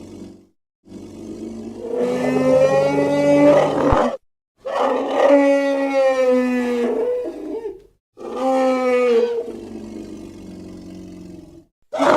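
Three drawn-out animal roar sound effects played one after another, each about three seconds long with brief silences between; the last fades to a quieter tail.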